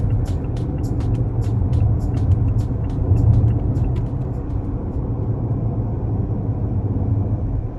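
Mazda CX-8's engine running steadily with a low rumble, with a quick, irregular clicking over it that stops about four and a half seconds in.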